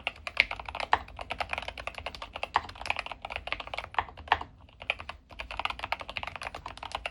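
Fast, continuous typing on a Keychron K8 HE keyboard with magnetic Hall-effect switches: a rapid stream of keystroke clacks, broken by a short pause a little past the middle.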